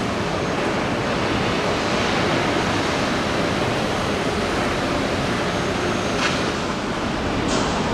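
Steady rushing shipyard background noise, with a short sharp knock about six seconds in and another near the end.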